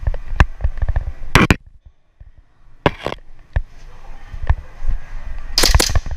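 Sharp pops and knocks of airsoft pistol shots and hurried footsteps in a small plywood room, with a short lull about two seconds in and a loud cluster of shots near the end.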